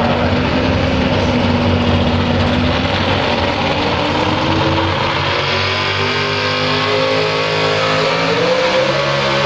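Supercharged engine of a Half Breed class pulling pickup running loud and steady at the starting line, its revs climbing near the end as the truck starts its pull.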